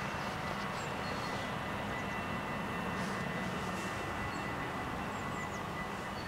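Level crossing warning bells ringing in a continuous steady tone, over the rumble of road traffic. The ringing marks the crossing's closing sequence before the barriers lower for an approaching tram.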